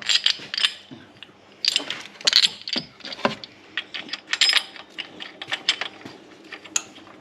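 Irregular metallic clicks and clinks, a few a second, from small metal engine parts and tools being handled.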